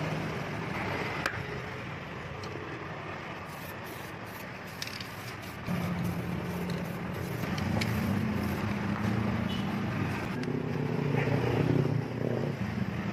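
An aerosol spray can hissing in short bursts over the steady running of a vehicle engine, which grows louder about halfway through.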